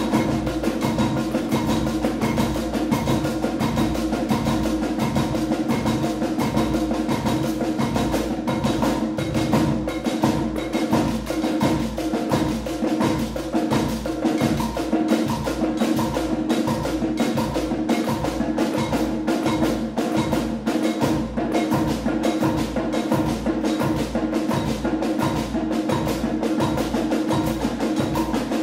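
Ensemble of unpitched percussion, snare drums, small hand-struck drums and tambourine, playing a dense, steady pulse of interlocking repeated strokes, in the manner of minimalist process music.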